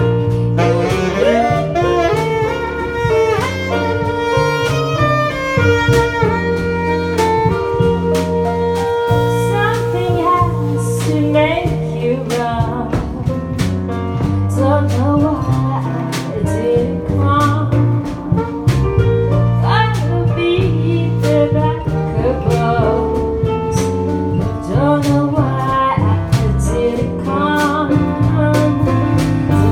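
Live band music in a jazz style: a bending melody line, sung or played on a saxophone, over a steady bass line.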